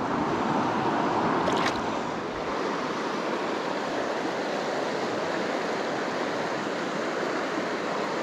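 Steady rush of a fast-flowing creek running through riffles.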